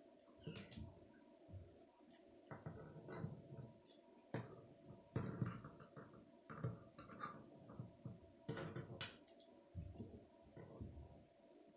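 K'nex plastic rods and connectors being handled and snapped together, with irregular light clicks and a few sharper snaps. A faint steady hum runs underneath.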